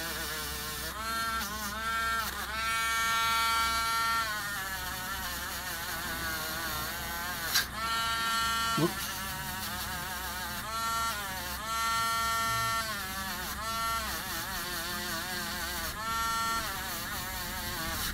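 Rotary tool spinning a soft brush wheel, buffing rust and corrosion off a small steel part of a Bolex H-16 movie camera: a steady motor whine whose pitch dips and recovers several times as the brush bears on the part. A sharp click comes about seven and a half seconds in.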